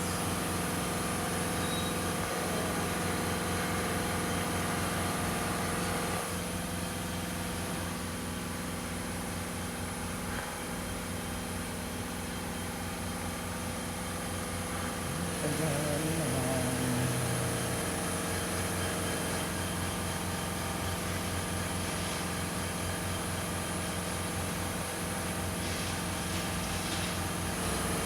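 Lexus LS460 4.6-litre V8 idling steadily with an even low pulse. The car has logged a P0300 random-misfire code, but the mechanic judges that it is not actually misfiring.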